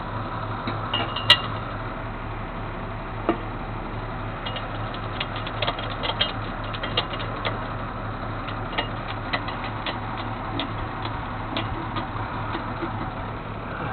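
A vehicle engine runs with a steady low hum, with light irregular clicks and rattles over it and one sharper click about a second in.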